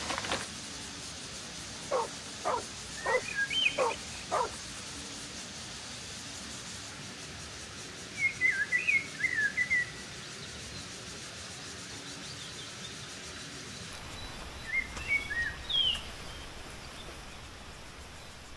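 Birds chirping in short phrases of quick, high, wavering notes, about eight seconds in and again near the end. Earlier comes a run of five short, sharp calls. A steady background hiss runs under it all.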